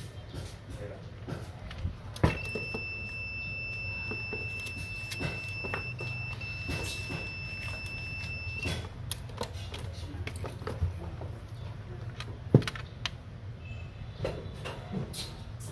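A multimeter's continuity buzzer gives a steady high beep for about six seconds, starting a couple of seconds in with a brief break midway. Under it are a low steady hum and scattered small clicks from the probes and from handling the circuit board, with two sharper clicks standing out.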